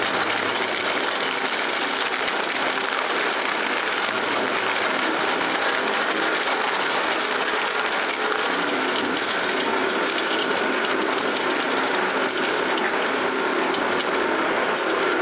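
Twin-shaft shredder running, its interlocking steel cutter discs turning and chewing through material fed into the hopper: a steady, dense mechanical noise with no pauses.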